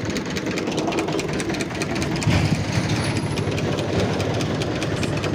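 An engine running steadily at idle with a fast, even pulse.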